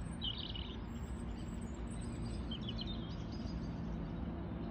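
Birds chirping in short bursts, once near the start and again about halfway through, over a low steady outdoor rumble.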